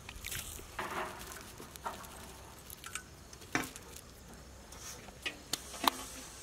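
Crisp fried onions sprinkled over layered biryani rice in a large aluminium pot: a light, irregular patter with a few sharper clicks.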